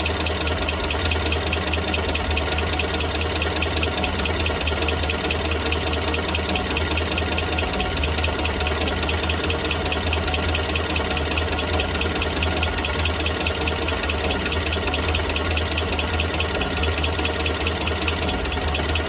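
Engine idling steadily, with a fast, even ticking over the hum: the engine noise that is still there after an exhaust leak was repaired.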